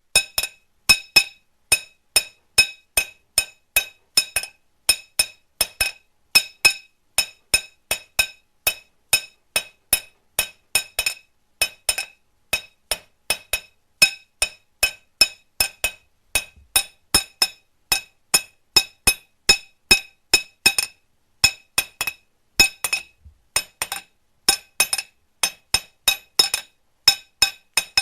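Hammer blows on metal, roughly three a second, keeping up an uneven beat. Each strike gives a sharp clink with a brief ringing tone. The strikes start suddenly out of silence.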